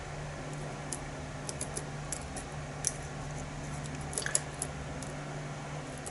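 Light metallic clicks and ticks of a lock pick and tension wrench working the pins inside a challenge lock, scattered and irregular, with the loudest little group of clicks a little after four seconds.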